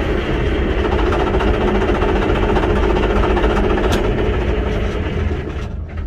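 Cat D9H bulldozer's D353 diesel engine running loudly, then winding down near the end as the throttle lever is pulled to shut-off. The engine stopping shows the new throttle linkage closes the fuel at the injection pump.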